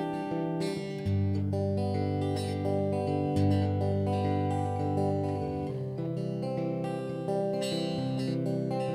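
Epiphone semi-hollow electric guitar playing a slow run of ringing chords, the chord changing about every two seconds.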